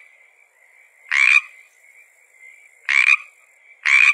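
A frog calling: three short croaks about a second or two apart, over a faint steady high-pitched tone.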